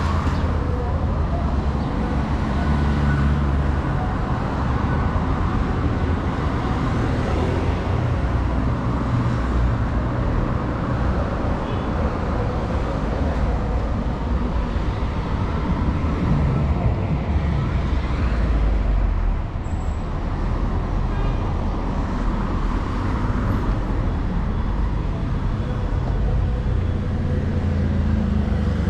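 Steady road traffic on a city street: cars and other motor vehicles passing, a continuous low rumble of engines and tyres.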